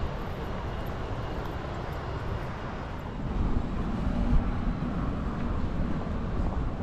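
Outdoor city ambience with a steady low rumble, which grows louder about three and a half seconds in.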